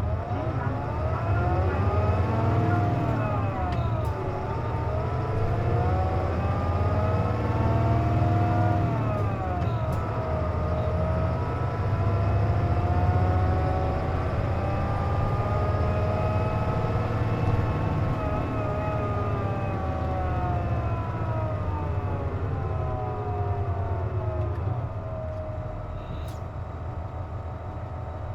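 Hino KC-JP250NTN city bus heard from inside: a steady low engine rumble under a whining tone that rises and falls with road speed. This whine is the bus's known abnormal noise, present while the air conditioning is running. The sound eases near the end as the bus slows.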